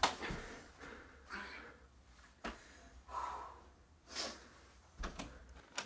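A young man's short, heavy breaths and gasps, coming about once a second, in pain after hurting his foot. A couple of soft taps near the end.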